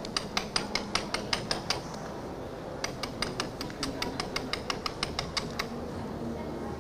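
Quick, light tapping of a small orange-handled hand tool on fresco plaster through foil and tissue paper, about five taps a second. There are two runs, broken by a pause of about a second. The tapping is part of reinforcing the damaged plaster.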